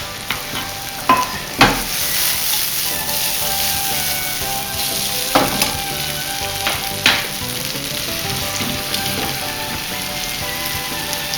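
Garlic and fresh chopped tomatoes sizzling steadily in extra virgin olive oil in a frying pan as they are stirred. A few sharp clicks of the utensil against the pan come through, about a second and a half in and again around five and seven seconds.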